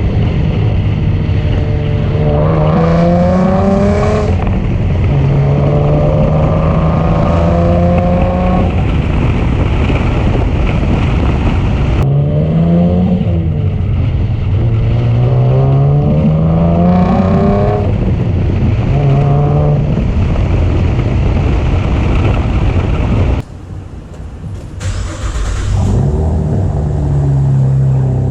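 Chevrolet Camaro V6 exhaust under way, fitted with an AF Dynamic cold air intake; the engine note rises again and again as the car accelerates through the gears, then drops back at each shift. The sound falls away briefly for a couple of seconds near the end.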